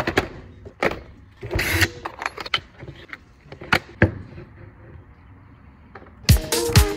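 Knocks, clicks and a short clatter as a plastic drill-bit case and a skateboard with its trucks are handled and set down on a wooden workbench. About six seconds in, electronic dance music with a steady beat starts.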